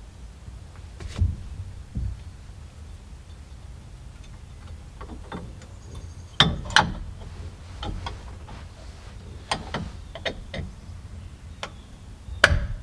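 Scattered clicks and light knocks of small steering-wheel parts being handled and fitted, with the loudest clacks about six and a half seconds in and again near the end.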